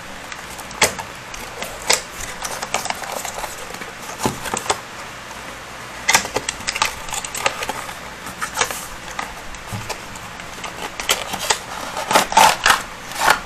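Small cardboard retail box being handled and opened by hand: irregular clicks, scrapes and rustles of the flaps and packaging, busiest near the end.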